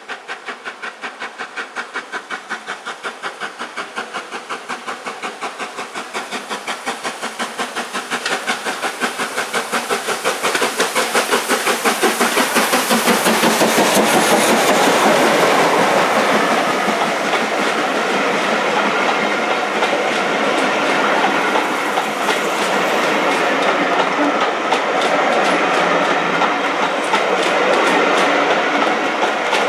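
LMS Black Five 4-6-0 steam locomotive 45231 working a train, its exhaust beating in a steady rhythm and growing louder as it approaches. It passes about halfway through, and its coaches' wheels then roll past steadily.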